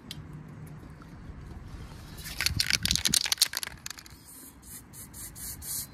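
Aerosol spray paint can shaken hard, its mixing ball rattling rapidly for about a second and a half. A few moments later come several short hisses of paint sprayed from the can.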